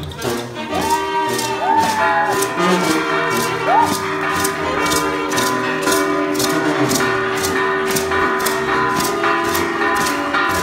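Live music for a traditional festival dance: sustained melody notes with a few sliding notes in the first few seconds, over a steady rattling beat about twice a second.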